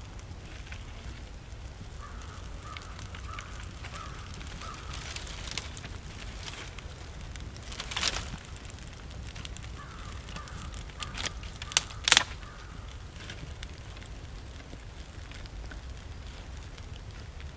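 Small twig campfire crackling, with a few sharp snaps, the loudest about 8 and 12 seconds in. Faint repeated calls sound in the background.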